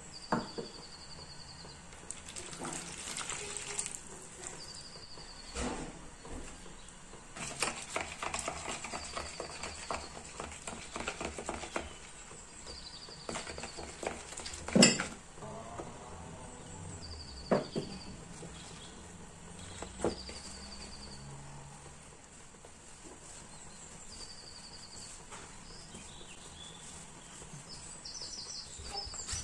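A metal spoon stirring flour into water and oil in a plastic bowl: scraping, with a few knocks of the spoon against the bowl, the loudest about halfway through. Near the end, hands knead the shaggy dough.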